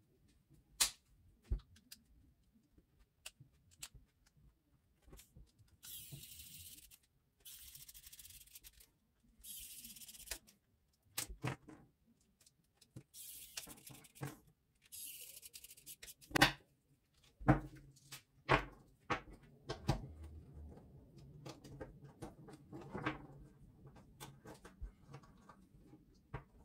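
Plastic clicks and knocks of a cordless soldering iron's housing and small parts being handled and fitted back together on a wooden table. Between about 6 and 16 seconds in come five short hissing bursts of about a second each while a pen-style screwdriver drives the housing screws.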